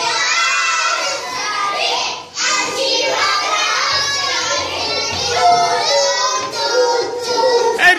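A group of young children singing together in a loud, lively chorus of many overlapping voices, with a brief break about two and a half seconds in.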